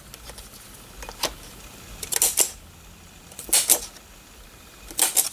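Handheld single-hole paper punch squeezed through a decorated card, giving a few short, sharp clicks spread about a second apart.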